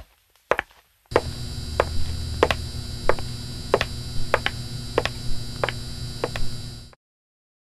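Sound effects of high-heel footsteps: sharp single clicks about two-thirds of a second apart. From about a second in, a steady electric neon-sign buzz comes up under clicks that keep the same pace. Everything cuts off suddenly near the end.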